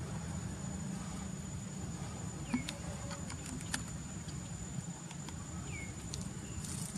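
Outdoor ambience: a steady low rumble and a thin, steady high tone, with a few faint clicks and two brief high chirps, one about two and a half seconds in and one near six seconds.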